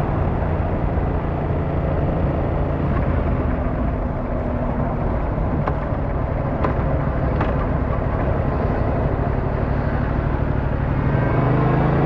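Yamaha MT-07's 689cc inline-twin engine running under way, with road and wind noise. About eleven seconds in, the engine note rises and grows louder as it accelerates.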